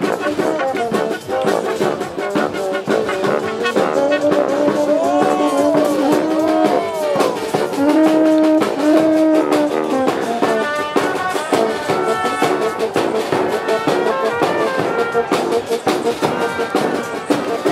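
A street brass band playing a lively tune live: trumpets, saxophone and sousaphone with accordion, violin and a bass drum keeping the beat. Notes slide up and down about a third of the way in.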